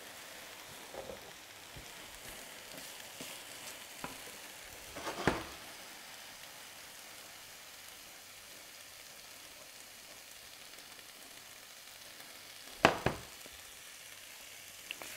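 Rice and vegetables sizzling faintly in a frying pan as they are stirred and tossed. Two sharp knocks, about five seconds in and a louder one near the end.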